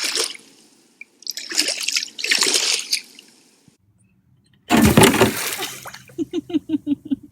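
Water being splashed in three bursts with pauses between, the last one about five seconds in the loudest, as the water is stirred up to make phosphorescent algae glow. Near the end a person's voice gives short, rhythmic sounds.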